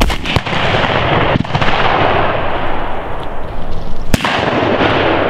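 Shotgun shots fired at flushed pheasants: one right at the start, another a split second later, a fainter one about a second and a half in, and a sharp one about four seconds in. Each is followed by a long rolling echo.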